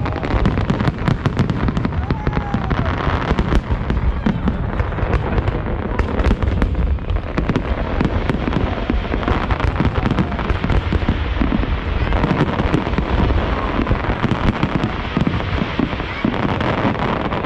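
Fireworks display going off at close range: a continuous barrage of bangs and dense crackling over a heavy low rumble.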